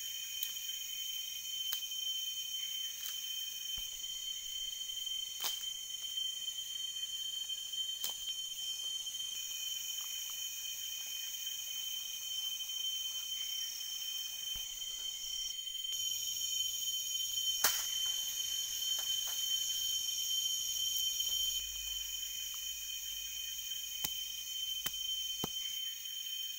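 Chorus of tropical forest insects calling steadily, several high-pitched tones layered together. A few sharp clicks and knocks sound now and then over it.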